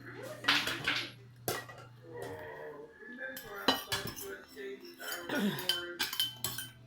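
Spoon and fork clinking and scraping against plates and bowls while eating, a string of sharp clinks.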